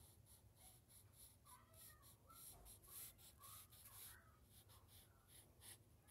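Faint pencil strokes scratching on notebook paper, a run of short quick strokes several times a second, as hair is sketched in.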